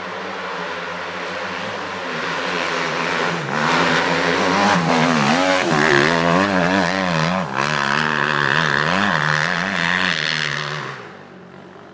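Dirt-bike engine revving hard as the bike rides up close and past, its pitch rising and falling with the throttle, then fading away about a second before the end.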